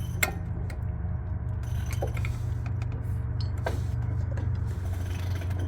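A few light metallic clicks from a brake caliper's spring clip being worked into place by hand, over a steady low hum.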